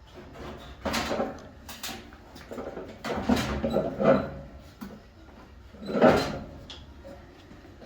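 Electrolux EDV6051 dryer's sheet-metal drum scraping and knocking against the cabinet as it is slid into place. The noise comes in three bursts: about a second in, around three to four seconds, and near six seconds.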